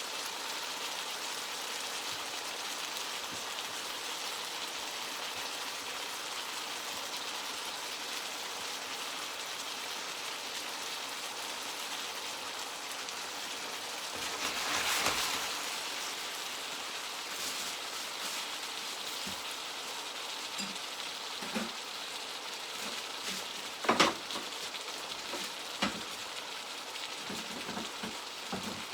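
Chicken, peppers and onions sizzling in oil in a frying pan, a steady crackling hiss that swells for a moment about halfway. A few short sharp knocks come in the second half, the loudest about three quarters through.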